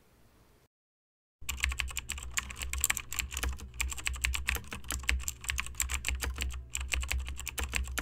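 Rapid computer-keyboard typing sound effect: a quick, irregular run of key clicks over a low hum, starting about a second and a half in. It accompanies on-screen text being typed out letter by letter.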